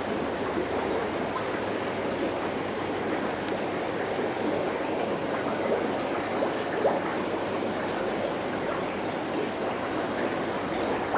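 Aquarium water noise: a steady rushing, bubbling hiss, with a few faint clicks about halfway through.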